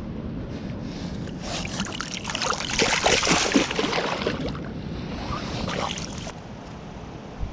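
Water splashing and sloshing in a creek, building to its loudest about halfway through and settling down about six seconds in.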